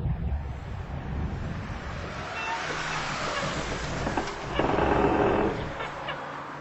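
Car driving with its engine running as a steady low rumble, then a louder rushing noise for about a second, starting about four and a half seconds in.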